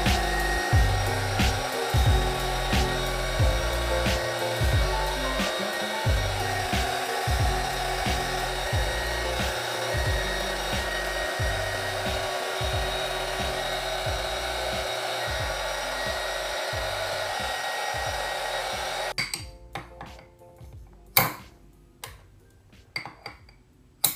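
Handheld heat gun blowing steadily as it is passed over the wax surfaces of poured candles in glass jars, re-melting the tops smooth. It cuts off suddenly about 19 seconds in, and a few sharp clicks follow.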